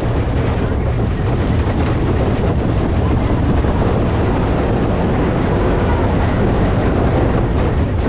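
Big Thunder Mountain Railroad mine-train roller coaster running along its track: a steady, loud rumble and clatter of the coaster cars on the rails.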